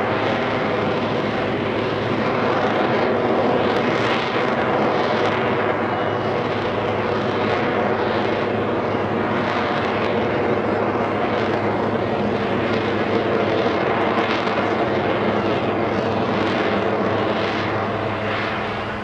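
The Screaming Sasquatch, a Taperwing Waco biplane with a radial piston engine and a turbojet slung underneath, flying aerobatics overhead. The engines run loud and continuous, and a roar pulses in and out roughly once a second as the plane tumbles.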